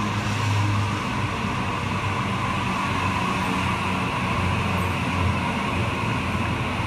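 Sydney Trains Waratah A-set double-deck electric train moving along the platform, a steady running noise with a low hum underneath.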